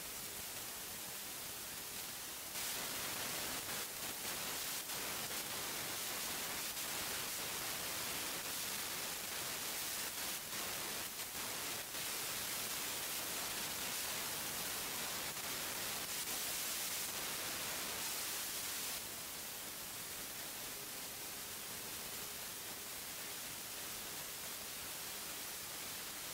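Steady, even hiss with no distinct events, a little louder between about two and a half and nineteen seconds in.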